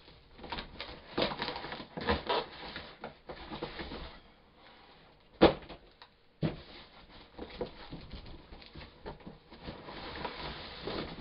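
Taped cardboard box being cut and torn open with a knife: tape and cardboard ripping and rustling, with scattered knocks. A sharp knock about halfway through is the loudest sound.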